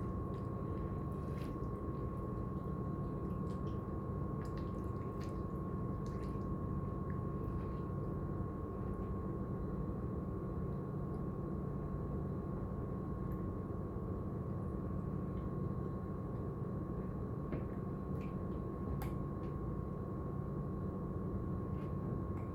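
Steady background hum with a constant high-pitched whine, and a few faint light clicks and taps scattered through it.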